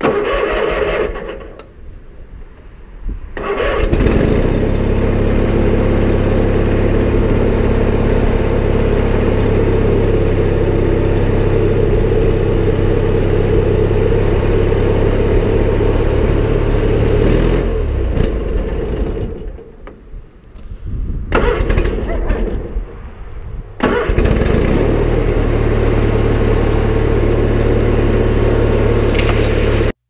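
A tractor engine running steadily. It drops away for a few seconds about two-thirds of the way through, then picks back up and runs on.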